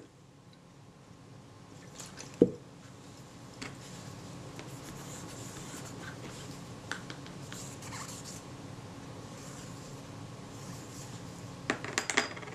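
Paper tissue rubbing over small metal lens parts as they are wiped clean, with one dull knock about two and a half seconds in and a quick cluster of light clicks near the end as the metal lens ring is handled and set on the mat.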